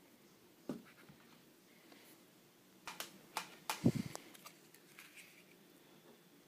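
Handling noise as a metal laser module is set down into its presentation box: a few small clicks, then a cluster of knocks with the firmest, a dull thud, about four seconds in.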